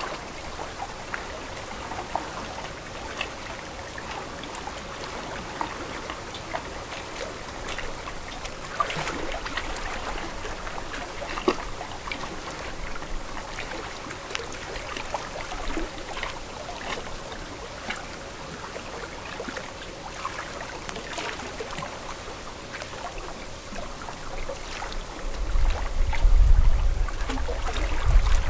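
Lake water lapping and trickling, with many small scattered splashes. A low rumble comes in near the end.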